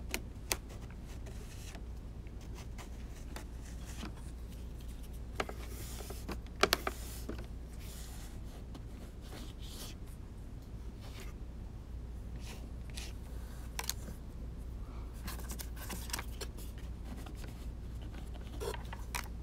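The edge of a card scratching and tapping on wet watercolour paper in a few short, scattered strokes, scraping paint away to make rock textures, over a steady low hum.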